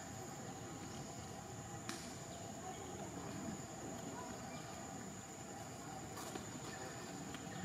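Outdoor ambience dominated by a steady high-pitched insect drone, with a faint low murmur beneath it. Two short sharp clicks stand out, about two seconds in and about six seconds in.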